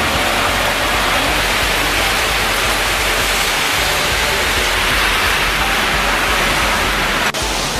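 Heavy monsoon rain pouring down: a loud, steady hiss of rainfall with a brief break about seven seconds in.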